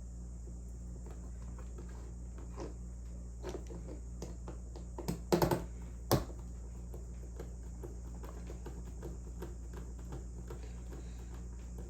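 Light scattered clicks and taps of hand work on small parts with a small screwdriver, with a quick run of louder taps about five seconds in and one more knock about a second later, over a steady low electrical hum.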